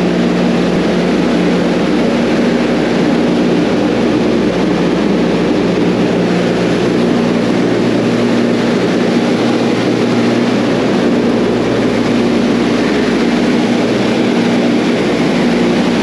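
Cooling fans of a container full of Bitmain ASIC Bitcoin miners, together with the container's exhaust fans, running at full speed: a loud, steady rushing roar with a steady low hum beneath it.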